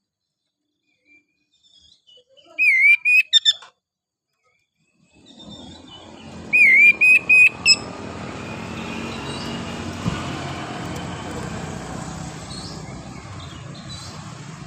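Oriental magpie-robin (kacer) singing: the same short, loud whistled phrase twice, about four seconds apart. A steady hiss comes in between the two phrases and runs on under the second.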